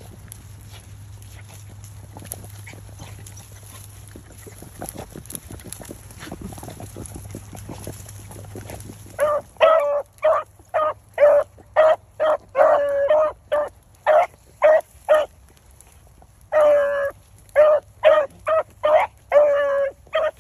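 Beagle hounds baying on a rabbit's track: a run of loud, short, repeated bays that starts about halfway in, with a few longer drawn-out bays among them. Before that, only faint rustling of dry brush.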